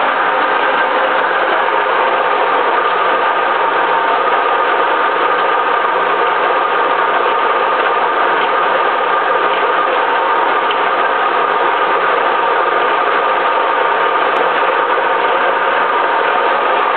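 Metal lathe running steadily under power, boring out the bore of a part spinning in its chuck: a continuous mechanical running noise with a steady whine through it.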